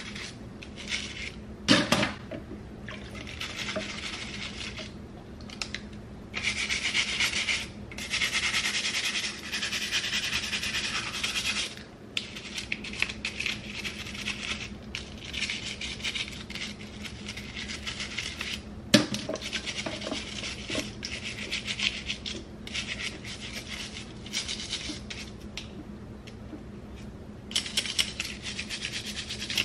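A small stiff-bristled cleaning brush scrubbing a wet plastic comb: scratchy rasping strokes in stretches of a few seconds, with a couple of sharp knocks, the loudest about two seconds in and another about two-thirds of the way through. A steady low hum runs underneath.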